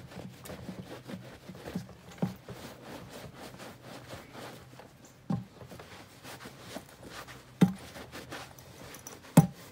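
A terry towel rubbing over a leather motorcycle boot, buffing off saddle soap: a soft, uneven scrubbing, broken by four short knocks, the loudest near the end.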